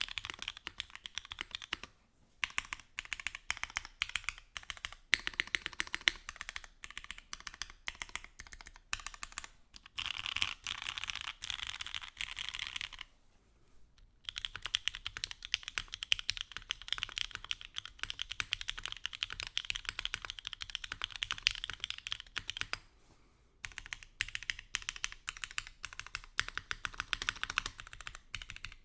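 Continuous typing on a Mode Sonnet mechanical keyboard with Ultraglide switches, fast runs of keystrokes broken by short pauses. Up to a pause about 13 seconds in, it is built with an aluminium plate, aluminium bottom case and foam stack mount; after the pause, with a POM plate, copper bottom case and lattice mount.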